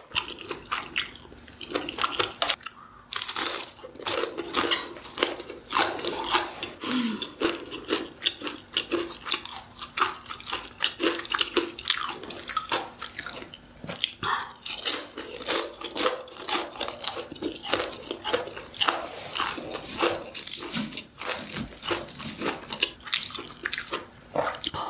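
Close-miked eating: a person biting and chewing food, with many irregular crunchy clicks throughout.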